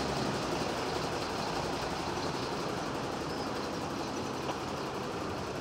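Steady hiss of road traffic, the general noise of cars on the road and motorway traffic.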